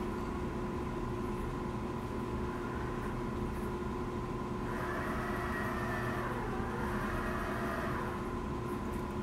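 Seaeye Falcon ROV's electric thrusters whining underwater over a steady hum, with the whine rising and gliding in pitch from about halfway through as the vehicle manoeuvres and turns.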